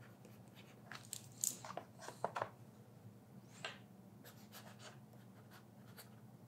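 Stylus nib writing on reMarkable e-paper tablet screens, a string of faint short scratchy strokes and light taps.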